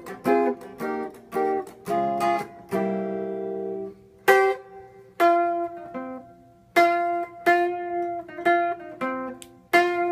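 Gretsch hollow-body electric guitar picking a rockabilly lick: short chord stabs and single notes with brief gaps between them, one chord left ringing about three seconds in.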